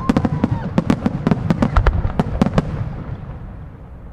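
Aerial firework shells bursting: a rapid, irregular string of sharp bangs and pops over the first two and a half seconds, then a fading rumble of echoes. Underneath runs a low bumping from wind buffeting a microphone mounted directly on the tripod.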